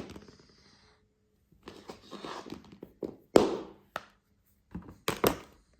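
Handling noise: a run of knocks, taps and rustles. The loudest knock comes about halfway through, followed by a few sharp clicks and knocks near the end.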